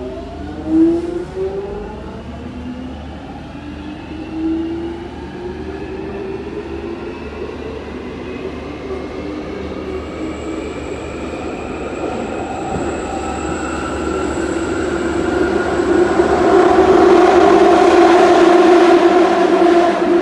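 London Underground 1996 Tube Stock train heard from inside the carriage, picking up speed: the traction motor whine glides upward in pitch over the first few seconds, then settles into a steady hum over the rumble of the wheels, which grows louder towards the end.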